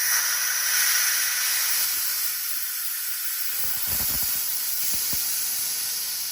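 Air hissing out steadily, tailing off and stopping near the end, with a few soft knocks partway through.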